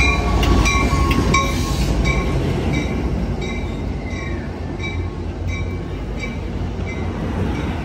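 Passenger train arriving: an EMD F59PHI diesel locomotive passes close with a deep engine rumble that fades away, then coaches roll by as the train slows. A bell rings steadily about one and a half times a second, and there is a brief falling squeal about four seconds in.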